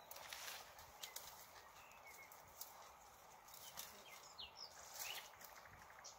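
Near silence with faint scattered clicks and rustles, and a few short, high bird chirps.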